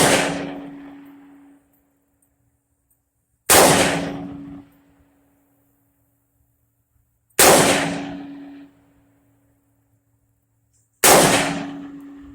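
Single gunshots fired one at a time about every four seconds: the tail of one right at the start, then three more. Each is a loud crack followed by a ringing decay of about a second.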